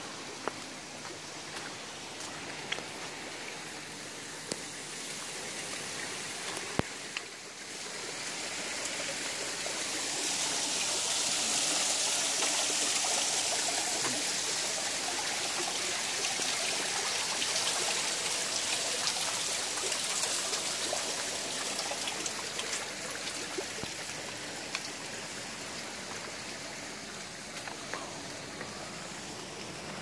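Steady hiss and splash of running water, growing louder for several seconds in the middle and then fading back.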